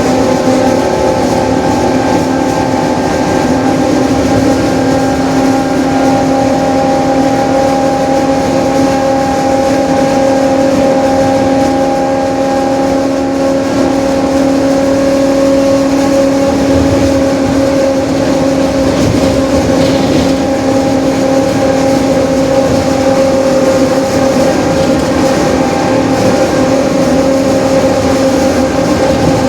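Mercedes-Benz OF-1721 Bluetec 5 city bus running at a steady speed, over a low rumble, with a constant whine from its differential, which is growling. The whine's pitch holds nearly steady throughout.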